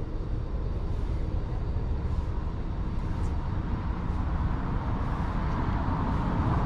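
Steady outdoor vehicle noise with a low rumble, growing gradually louder near the end.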